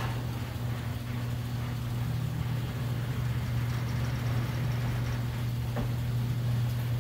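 LiftMaster H-model 3/4 hp commercial hoist operator running, a steady motor hum as it raises a sectional overhead door.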